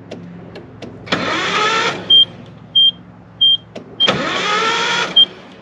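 Starter motor cranking the long-dormant Nissan 720 pickup's Z24 four-cylinder engine in two short bursts of about a second each, spinning up and cutting off without the engine catching. A dash warning chime beeps steadily about every half second, which is taken for the seatbelt warning.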